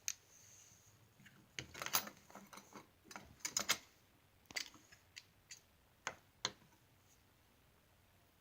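Small parts of a taken-apart folding knife clicking and tapping as they are handled and set down: about a dozen light, separate clicks, stopping about seven seconds in.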